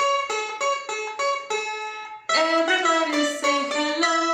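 A plucked string instrument of the guitar family plays the introduction to a children's goodbye song. It picks single notes about three a second, then turns louder and fuller a little past two seconds in.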